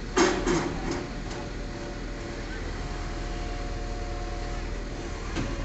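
Truck-mounted crane's engine running steadily with a low hum. A quick cluster of loud clattering knocks comes just after the start, and a single fainter knock comes near the end.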